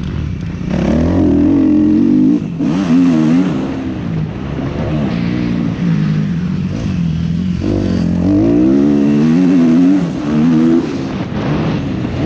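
Kawasaki KX250F four-stroke single-cylinder motocross engine under way, revving up and down through the corners as the throttle is backed off and opened again several times, with wind rushing over the helmet-mounted microphone.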